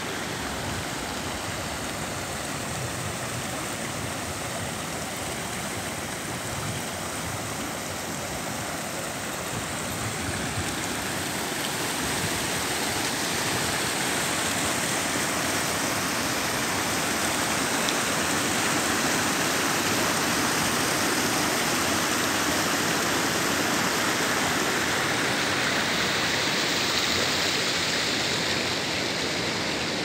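Rushing water of a small waterfall and stream cascading over rocks into a pool: a steady hiss that grows louder about a third of the way in.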